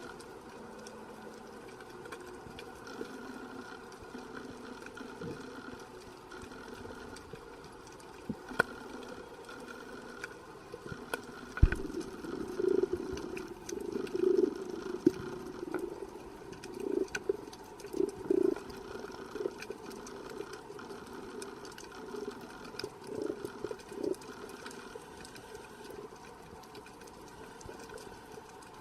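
Underwater sea sound on a breath-hold dive: a steady low hum with faint scattered clicks, and from about twelve seconds in, irregular short louder bursts.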